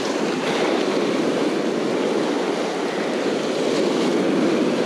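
Ocean surf washing up the beach around the angler: a steady rushing noise of breaking waves and foam, swelling slightly near the end.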